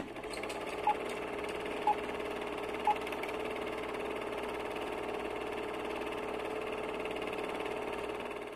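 Film-leader intro sound effect: three short beeps about a second apart over a steady whirring hum, like a running film projector. The hum cuts off suddenly at the end.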